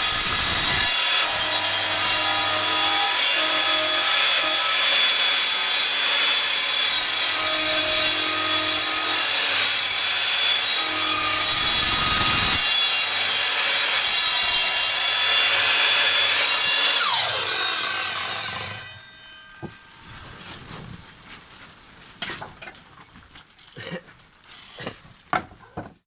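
Sliding mitre saw running with its blade cutting through wood, a loud steady whine and rasp. After about 17 seconds the motor winds down with a falling whine, followed by a few light knocks and clicks.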